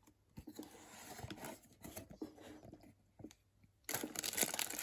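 Packaging being handled as a subscription box is opened: soft rustling and light clicks, then loud paper or plastic crinkling near the end.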